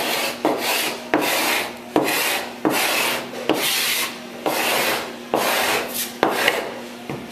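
Steel-bodied Bahco/Sandvik hand scraper drawn in repeated strokes across the cypress lapstrake planking of a wooden boat's bottom, taking dry, loosely adhered bottom paint off down to the wood. The strokes come steadily, about one a second, each starting sharply.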